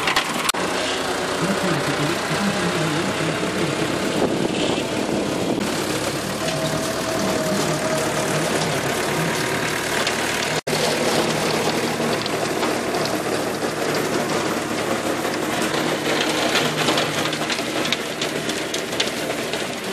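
Massey Ferguson 275 tractor's four-cylinder diesel running under load while the rotary tiller churns through weeds and soil, a loud, steady, dense machine noise. The sound breaks off for an instant about halfway through.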